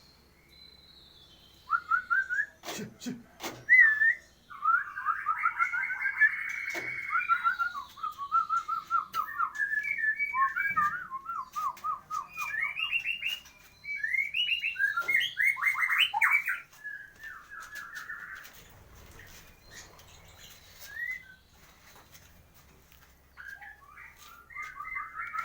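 Caged white-rumped shamas (murai batu) calling and singing in quick trilled, whistled phrases, several birds overlapping, with a lull in the second half before they pick up again near the end. A couple of sharp knocks sound about three seconds in.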